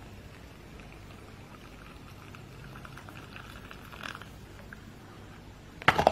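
Hot water poured in a thin stream into a paper instant-noodle cup, trickling faintly, then a lid set down on the cup with a loud clatter just before the end.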